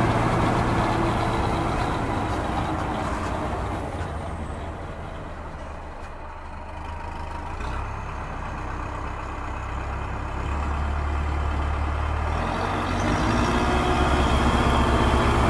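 Truck engine sound effect dubbed over the toy vehicles, running steadily at a low hum. It grows quieter around the middle and swells back up toward the end.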